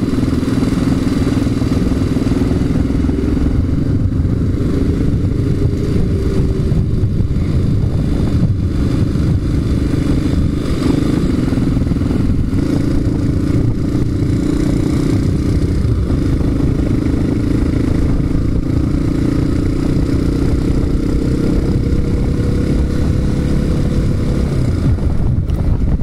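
Motorcycle engine running at a steady cruise, heard from the rider's seat, with heavy low wind rumble on the microphone in strong gusty wind.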